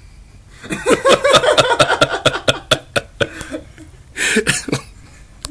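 Person laughing hard in a run of quick ha-ha bursts lasting about two and a half seconds, then a breathy laugh about four seconds in.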